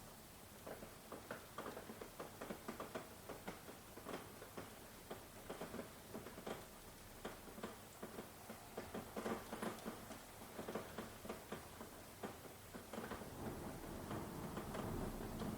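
Rain pattering and dripping in many irregular close taps over a soft hiss, with a low rumble of distant thunder building near the end.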